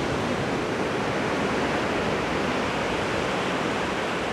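Steady rush of ocean surf, an even wash of noise with no distinct breaks.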